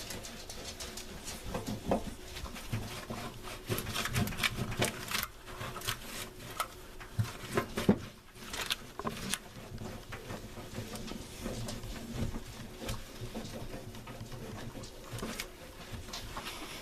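Cloth wiping the inside of a microwave oven, with irregular rubbing, clicks and light knocks against its walls as the grime loosened by vinegar steam comes off.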